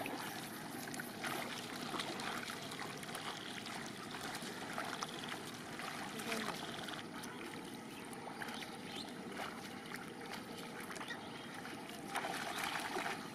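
Feet wading through the shallow water and mud of a flooded rice paddy, with small splashes and trickling, growing louder near the end as feet run and splash through it.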